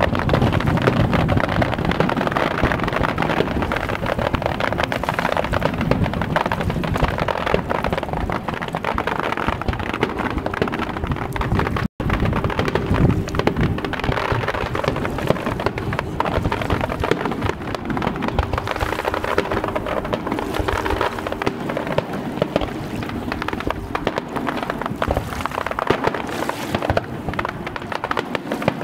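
Aerial fireworks going off in a continuous barrage: many bangs and crackles overlapping without a break. The sound cuts out for an instant about twelve seconds in.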